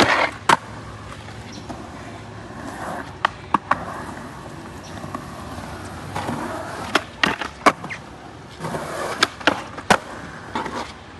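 Skateboard wheels rolling on wet concrete with a hissing rumble, broken by sharp wooden clacks of the board popping and landing several times.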